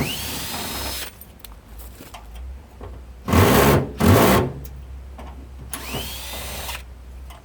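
Cordless power drill/driver backing screws out of a washing machine's panels: a short run with a rising whine right at the start and another about six seconds in, and two louder bursts in the middle.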